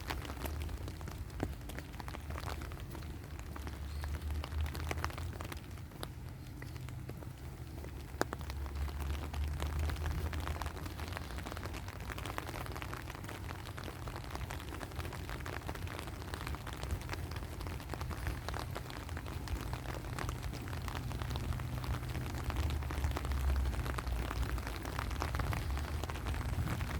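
Steady rain falling, with many scattered drop clicks over a hiss. A low rumble underneath swells and fades several times.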